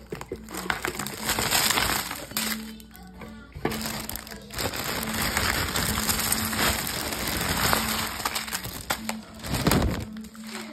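Wrapped Halloween candy being shaken and tipped out of a plastic trick-or-treat bucket onto a wooden floor: a dense rattling and crinkling of wrappers in two spells, with a brief lull about three seconds in.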